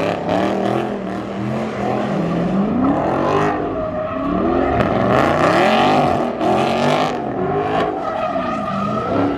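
A car engine revving hard over and over, its pitch sweeping up and down about once a second, with tyres skidding, as in burnouts or donuts.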